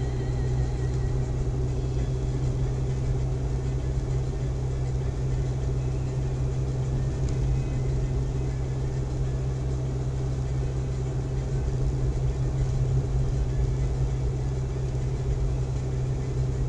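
Steady car engine and tyre rumble heard from inside a car driving at an even speed on a snow-covered road.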